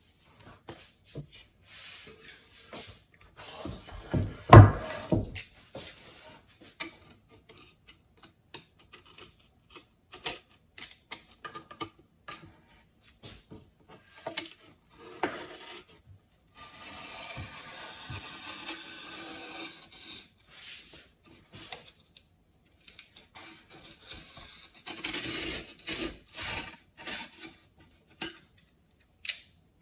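Utility knife blade scraping and cutting along the edge of watercolour paper on a board, in short scratchy strokes with longer scrapes about seventeen and twenty-five seconds in. A single loud knock about four seconds in.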